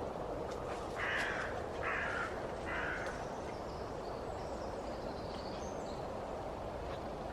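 A crow cawing three times, about a second apart, over a steady outdoor background hiss.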